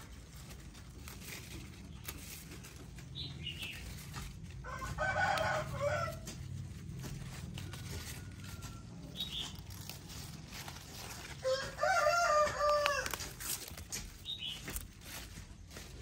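A rooster crowing twice, each crow lasting about a second and a half, with a few short high chirps in between.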